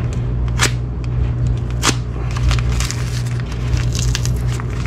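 Brown kraft packing paper crinkling and crackling as it is unwrapped from small parts by hand, with two sharper crackles about half a second and two seconds in, over a steady low hum.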